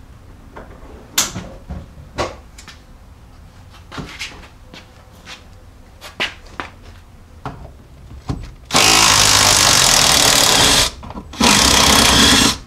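A few scattered knocks and clunks from the rear seat being worked loose, then an impact wrench running in two loud bursts, about two seconds and one second long, on the rusty 13 mm seat-mount bolts of the 1999 Jeep Cherokee XJ.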